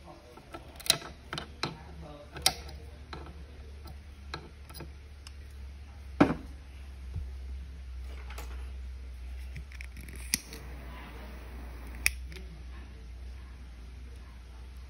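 Side-cutting pliers snipping fishing line, followed by scattered sharp clicks and taps from handling a hook in a metal bench vise, the loudest about six seconds in. A low steady hum runs underneath.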